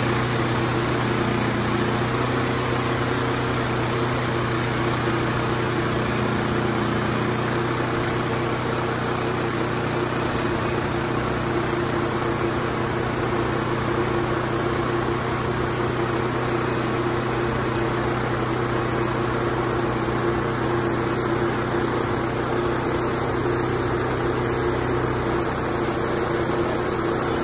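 Engine of a Wood-Mizer LT28 portable band sawmill running steadily at an even pitch.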